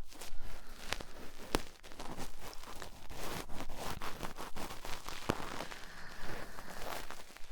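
Cotton swab rubbing and scraping against the silicone ear of a 3Dio binaural microphone: close, crackly scratching and rustling with many small clicks.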